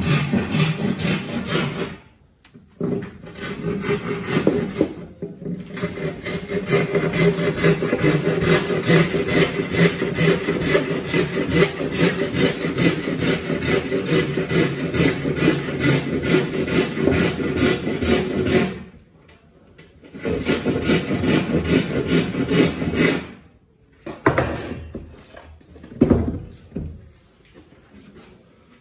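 A hand tool scraping wood in long runs of rapid back-and-forth strokes, with short pauses between runs and only scattered scrapes near the end.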